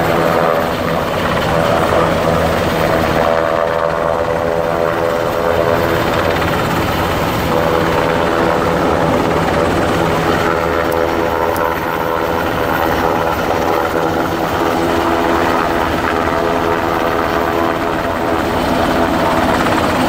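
UH-60 Black Hawk helicopters flying low overhead: a loud, steady rotor beat with the turbines' whine over it, from two helicopters at once.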